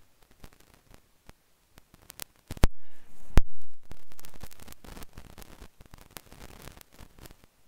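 Static hiss and crackle on a live online-class audio line, broken by sharp clicks. A louder stretch of hiss with two strong clicks comes a few seconds in, then fades back to faint crackle.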